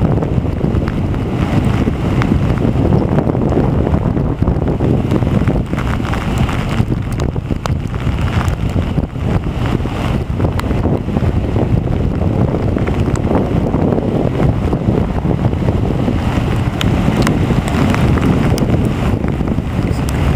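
Wind buffeting the microphone in a steady, loud rumble, over the wash of surf breaking on the beach.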